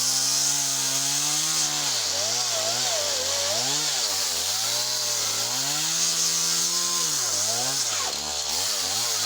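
Small chainsaw cutting softwood. The engine pitch dips and recovers every second or so as the chain bites and frees, with one deeper bog about eight seconds in.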